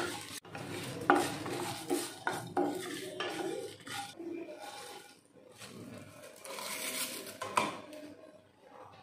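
A wooden spatula scrapes and knocks as it stirs whole spices around a dry non-stick kadai while they dry-roast, with the seeds rattling against the pan. Near the end, the spices are tipped out of the kadai into a steel bowl.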